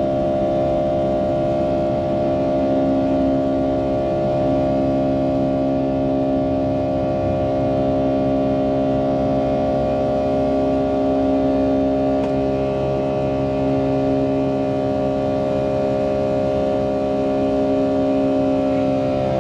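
Pratt & Whitney PW2037 turbofan engines of a Boeing 757-200 running steadily, heard inside the passenger cabin as a loud rush with several held, whining tones. The tones shift slightly downward near the end.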